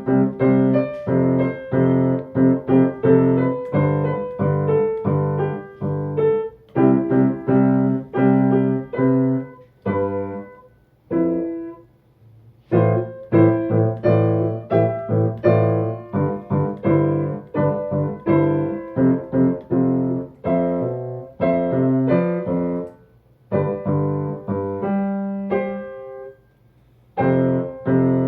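Solo piano playing a pop-song arrangement, chords with melody, by a student. The playing breaks off twice, about ten seconds in and again near the end, and picks up again each time.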